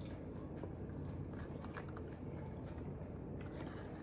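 A person chewing food close to the microphone, with small scattered mouth clicks: mukbang eating of a boiled onion and eggs.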